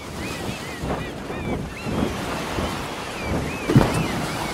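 Sea waves and wind with many short chirping bird calls, and a few dull knocks, the loudest near the end.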